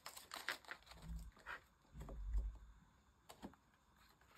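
Banknotes and the envelope pages of a cash binder being handled and turned: soft paper rustles and light clicks, with two dull low bumps about one and two seconds in.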